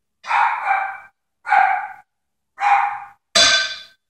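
Pet dog barking repeatedly, a string of short barks about one a second with brief gaps between them.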